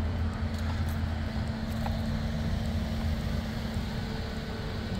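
Steady low rumble with a faint steady hum, typical of a vehicle engine idling close by.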